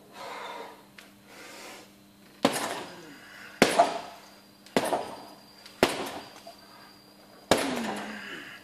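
Boxing gloves striking a heavy punching bag: five hard punches roughly a second apart, starting about two seconds in, each echoing in a large hall.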